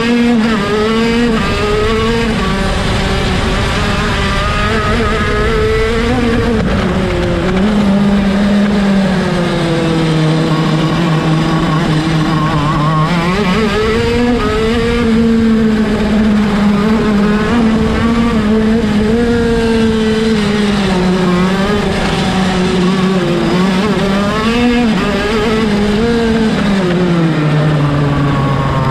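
The 125cc two-stroke engine of a KZ shifter kart at race pace, heard onboard. Its pitch repeatedly climbs, drops sharply and climbs again as it is driven through the gears and braked into corners.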